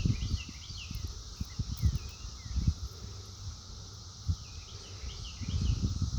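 A steady high buzzing of an insect chorus, with short bird chirps coming in clusters at the start and again about five seconds in. Under it runs a low, uneven rumble of buffeting on the microphone, which is the loudest part.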